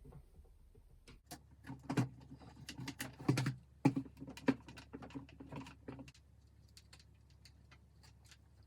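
Irregular clicks, taps and light knocks of a screwdriver and hard plastic frame parts as small screws are fitted into a plastic model-kit frame, thinning out after about six seconds.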